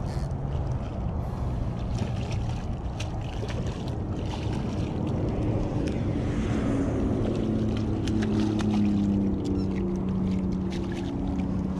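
Wind buffeting the microphone, with light splashes and clicks as a hooked fish is reeled in through shallow water over rocks. A steady low drone joins in about halfway through.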